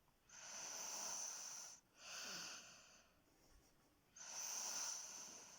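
A sleeping woman snoring: two long noisy breaths with a shorter one between them, in a slow steady rhythm.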